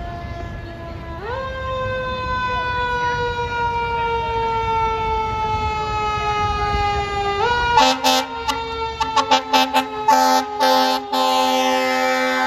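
Fire truck siren wailing: it winds up sharply in pitch twice and slowly slides back down each time. From about eight seconds in, a series of short, loud air horn blasts sounds over it.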